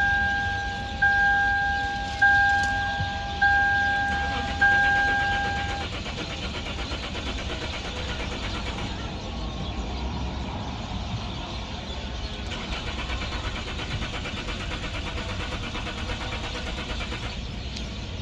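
A warning chime beeps five times, about once a second. Then the 2011 Lexus IS300's starter cranks the engine steadily for several seconds without it catching: the car's crank-no-start fault.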